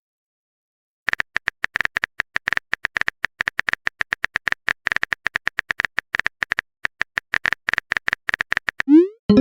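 Smartphone keyboard typing clicks as a sound effect: a rapid, uneven run of short identical clicks beginning about a second in. Near the end it gives way to a short rising swoosh, the message-sent sound.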